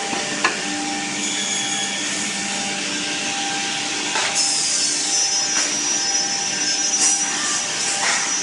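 Twin-spindle CNC drilling machine running, a steady rush of noise with a low hum. About four seconds in, a high whine starts and holds, and a few sharp knocks sound as the drill heads work on the board panel.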